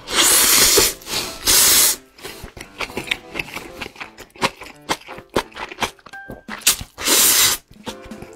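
Noodles slurped in loudly three times, with wet chewing and mouth clicks in between.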